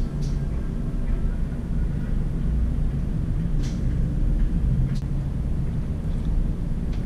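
Steady low rumbling background noise, with a few light, short clicks: one just after the start, and two more around the middle.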